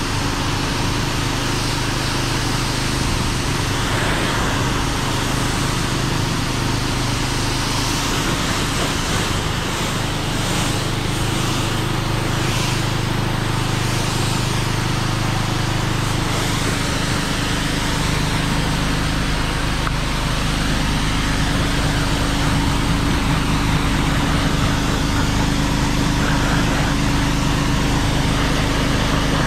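Kärcher K4 pressure washer rinsing a car: a steady hiss of the water jet striking the paintwork over the hum of the running pump motor. The hum shifts to a slightly different pitch a little past halfway.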